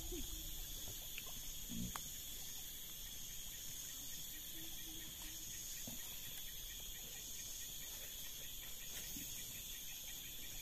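Steady chorus of forest insects, a continuous high-pitched buzz in several pitches, with a faint knock about two seconds in.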